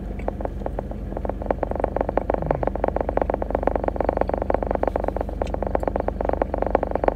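Car air conditioner running with a rapid, even rattle over a steady low hum. The rattle grows louder about a second in.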